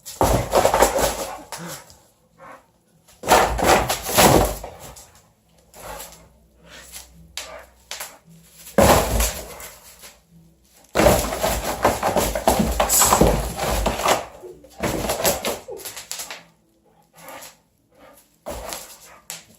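Boxer dog scrambling after a laser dot: several bursts of scuffling and thumps with quieter pauses between, mixed with the dog's own noises.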